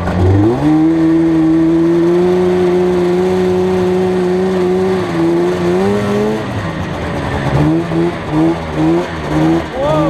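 Arctic Cat snowmobile engine revving up and holding a steady high pitch, climbing once more about six seconds in. Near the end it surges up and down in short pulses about twice a second as the throttle is worked on and off.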